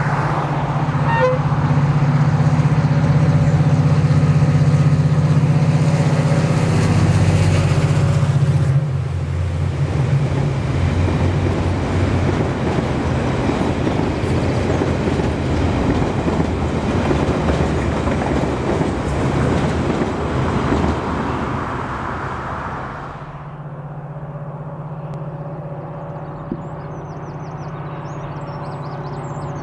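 GM 071 class diesel locomotive passing close with its engine running loudly under load, followed by its laden steel-rail wagons rolling past as a steady rumble and clatter of wheels on the track. About twenty-three seconds in, the sound drops to a quieter, steady engine hum of the same train heard far off.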